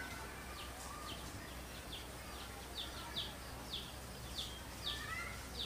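Small birds chirping: one bird repeats short, high, falling chirps about twice a second, with fainter bird calls mixed in over a steady low hum.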